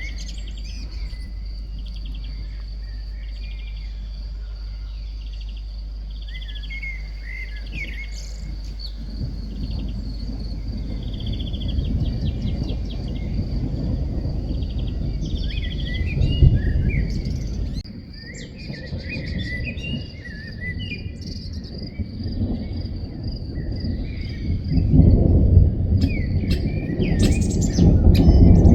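Garden birds chirping over a steady high-pitched insect buzz, while low rolling thunder swells in twice, loudest near the end.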